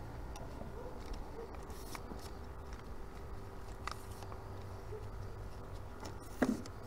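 Quiet background with a faint steady hum, a few light clicks, and one sharper knock near the end.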